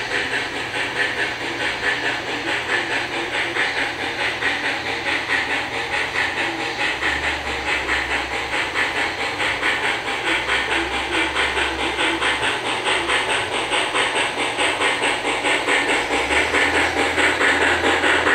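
Model Nickel Plate Road 765 Berkshire steam locomotive's sound system chuffing steadily with a hissing exhaust beat, over a low rumble of the model train running on the track. It grows louder as the locomotive approaches and passes close by near the end.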